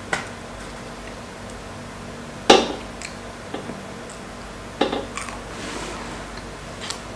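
Fingers handling fried chicken on a plate, giving a few sharp clicks and knocks against the plate; the loudest comes about two and a half seconds in and another just before five seconds.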